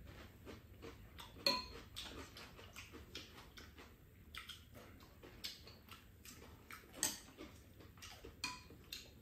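Spoons and chopsticks clicking and clinking against bowls and a pan during a meal: faint, scattered clicks, two sharper ones about a second and a half in and about seven seconds in.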